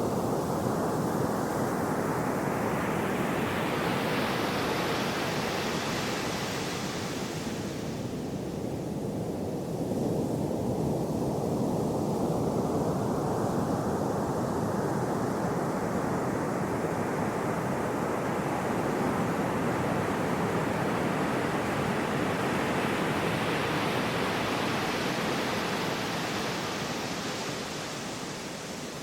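Gentle sea waves washing ashore: a rush of surf that swells for several seconds and falls away sharply about eight seconds in, then a second, slower swell building over most of the rest.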